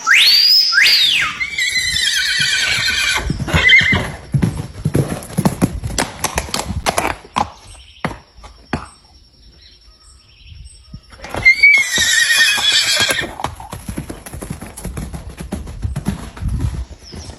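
A horse whinnying twice: a long, wavering neigh near the start and another about two-thirds of the way through. Between and after the neighs come hoofbeats, a clip-clop of knocks.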